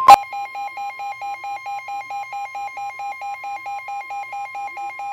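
A weather radio's warning alarm: the steady alert tone cuts off with a loud click, and a rapid electronic beeping follows, about four to five shrill beeps a second, with a faint steady tone underneath.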